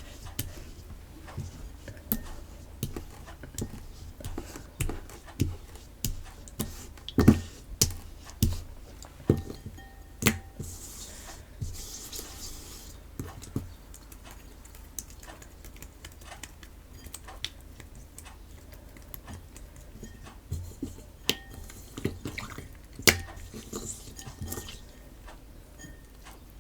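Hands kneading a rubbery homemade PVA-glue slime, giving irregular sticky clicks, pops and squelches, busiest in the first half.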